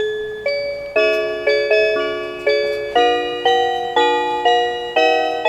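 Meitetsu railway chime melody: bell-like notes and chords struck about twice a second, each ringing and fading. It starts with a single note, climbs in pitch for about four seconds, then steps back down.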